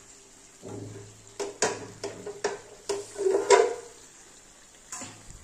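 Several short knocks and light clatter of steel cookware and utensils being handled, spread out with quiet gaps between, the loudest about three and a half seconds in.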